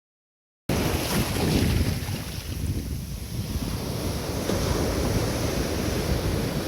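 Silence for under a second, then sea surf breaking on a rocky shore cuts in abruptly, with heavy wind buffeting the microphone.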